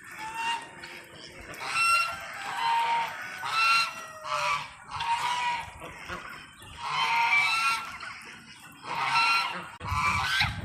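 Geese honking, several birds calling over one another in loud clusters every second or two.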